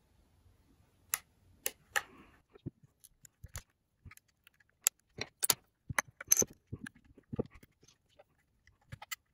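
Irregular sharp plastic clicks and scrapes from a plastic opening pick and a small screwdriver being worked into the seam of an I-O DATA portable hard-drive enclosure, prying its clipped plastic shell apart. The clicks are most frequent in the second half.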